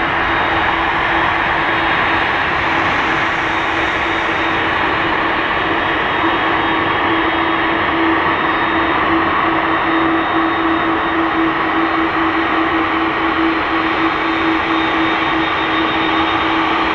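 Airbus A330-300's two General Electric CF6-80E1 turbofans running at taxi idle as the airliner taxis: a steady jet rush with a constant low hum and a faint high whine.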